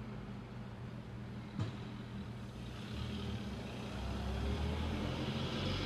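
Vintage car engine running slowly as the car rolls forward, growing louder in the second half as it comes closer. A single sharp click about a second and a half in.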